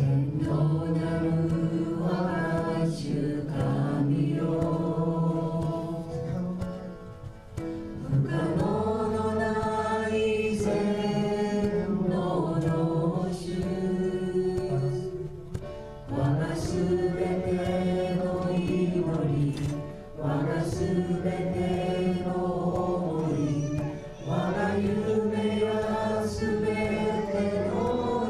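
Worship song sung in Japanese: voices holding long notes in phrases of about four seconds, each separated by a short break.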